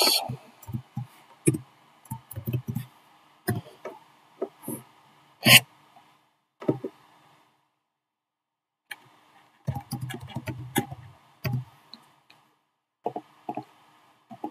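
Computer keyboard keystrokes and mouse clicks in short, irregular bursts, with a few sharper clicks standing out and a brief quiet pause midway.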